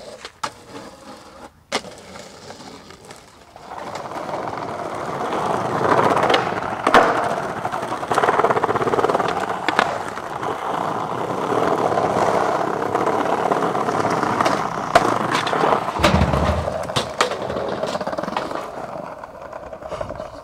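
Skateboard wheels rolling over rough pavement, broken by sharp clacks of the board popping and landing. A heavy low thud comes about sixteen seconds in.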